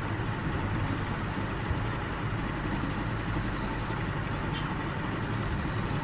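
Steady low hum with a constant hiss over it, unchanging throughout.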